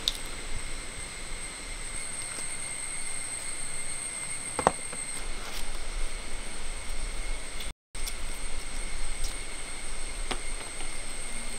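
Outdoor ambience carried by a steady high-pitched insect drone, with a few sharp clicks and taps from knife work on jackfruit, the loudest about halfway through. The sound cuts out for a moment about two-thirds of the way through.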